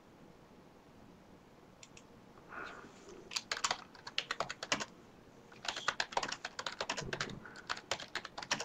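Typing on a computer keyboard: quiet at first, then two runs of rapid keystroke clicks with a short pause between them.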